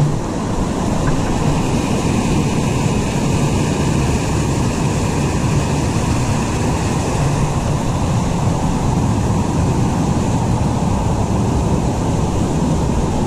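Steady rushing of spring water spilling over rock ledges in a small whitewater cascade.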